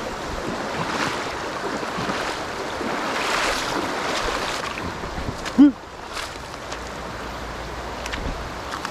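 Shallow river water rushing and splashing around a wader's legs, swelling a little a few seconds in, with one short, louder thump about halfway through.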